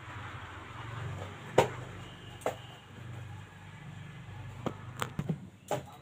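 Iron tongs clicking and knocking against the wire rack and pan while a roti is puffed over a wood-fired clay stove: about six sharp clicks, the loudest about a second and a half in and several close together near the end, over a low steady hum.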